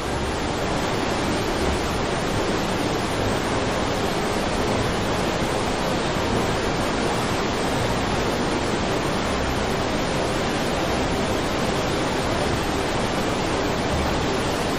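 Silt-laden floodwater of the Yellow River pouring over Hukou Waterfall in flood: a steady, unbroken rush of water with no let-up.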